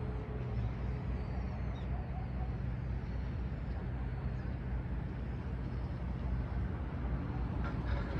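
Cruise boat's engine running with a steady low hum.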